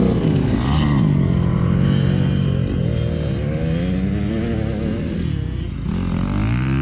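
Kawasaki dirt bike engine revving, its pitch rising and falling several times as the throttle is opened and closed, with a climb near the end.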